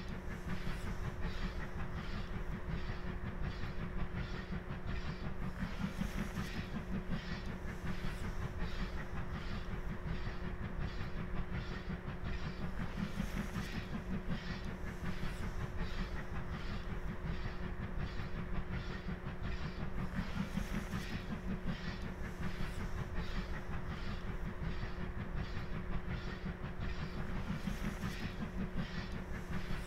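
LMS Ivatt Class 2 2-6-0 steam locomotive working a train, its exhaust beating in a steady, even rhythm of about two chuffs a second over a continuous low rumble.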